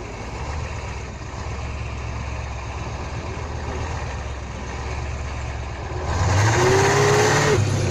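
Heavy truck's diesel engine running steadily, then revving up about six seconds in, with a loud hiss over it for about a second and a half.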